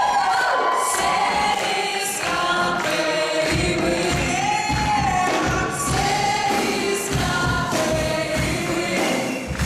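Group of voices singing together in chorus, with musical accompaniment; a bass and beat come in about three and a half seconds in.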